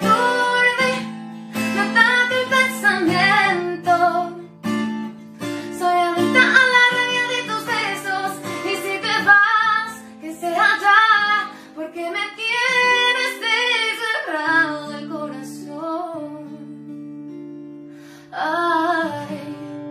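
A woman singing a Spanish-language ballad and accompanying herself on an acoustic guitar. The voice pauses about fifteen seconds in, leaving the guitar alone for a few seconds, then comes back near the end.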